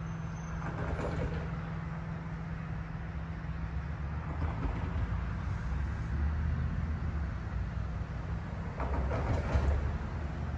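Low, steady rumble of vehicle engines, with a steady hum that fades about three seconds in and brief louder swells about a second in and again near the end.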